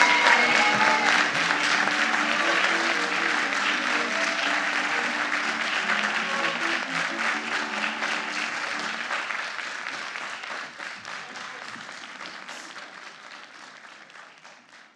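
Theatre audience applauding, with music playing under it at first. The applause fades out steadily over the last several seconds.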